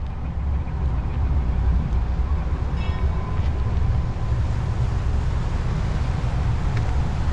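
Low, steady rumble of a car ferry's engines under way, building over the first second and then holding.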